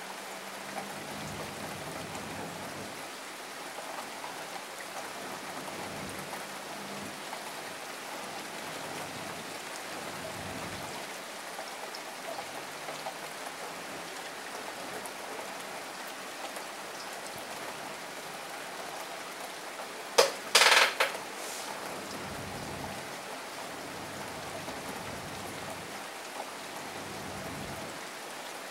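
Steady rain falling, an even hiss of rain on the surroundings. About two-thirds of the way through, a short cluster of loud, sharp clicks or knocks stands out above the rain.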